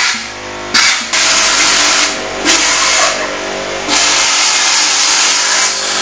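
Air compressor motor running steadily under repeated loud rushes of air, each lasting one to two seconds with brief dips between them.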